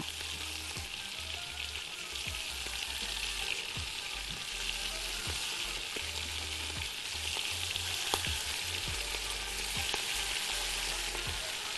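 Beef cubes searing in hot butter in a pot: a steady frying sizzle, with a few faint ticks as more pieces are laid in one at a time. The meat goes in slowly so the pot stays hot enough to sear rather than stew.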